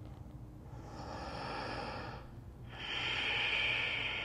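A woman's deep breathing, heard plainly: two long breaths, the second louder.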